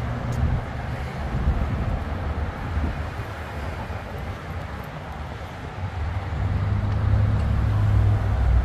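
City street traffic passing close by: a steady low rumble of engines and tyres that swells louder over the last few seconds as a vehicle draws near.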